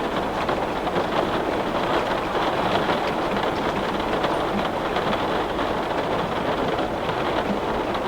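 Heavy rain pattering steadily on window glass, a dense even hiss full of fine drop ticks.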